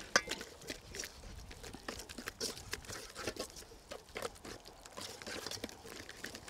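Wire whisk beating a wet grated-potato and mash batter in a stainless steel bowl: a quick, irregular run of quiet clicks and scrapes of the whisk against the bowl.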